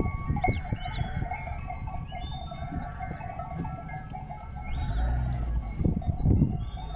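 A large flock of sheep passing close by on a road: a busy patter of hooves with bells clinking among the animals.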